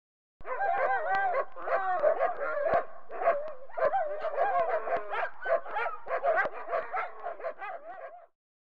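Dog barking, yipping and whining in a quick, unbroken string of high-pitched calls, starting about half a second in and cutting off sharply near the end.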